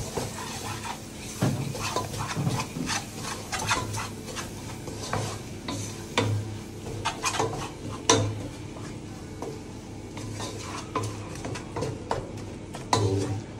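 Wooden spatula stirring and scraping an onion and spice masala around a non-stick pot, with irregular scrapes and taps against the pan over a light sizzle of the masala frying in oil.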